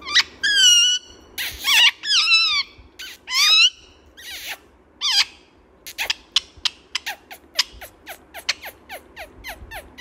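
Rose-ringed parakeet calling: several loud, high squawks with pitch that bends up and down over the first five seconds, then a fast run of short, downward chirps, about four a second.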